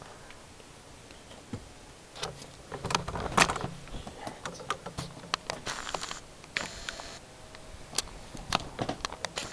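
Camera handling noise: irregular clicks, knocks and rustling scrapes as the camera is moved about, starting about two seconds in and loudest a second or so later, over a faint steady hiss.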